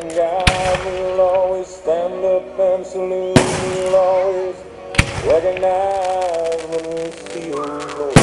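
Aerial firework shells bursting with four sharp bangs, about half a second in, at about three and a half and five seconds, and at the very end, over continuous music with long held notes.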